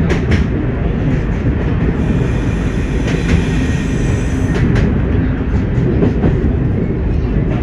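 Class 104 diesel multiple unit running along the line, heard from the driving cab: a steady low rumble of engine and wheels, with a few sharp clicks as the wheels pass rail joints.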